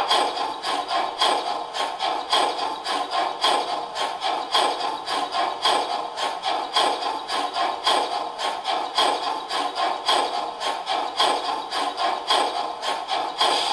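Steam-locomotive exhaust chuffing from the ESU LokSound 5 XL sound decoder of a brass gauge 1 model of a DB class 64 tank engine, running at a steady speed. The beats come in a quick, even rhythm, with a stronger beat about once a second.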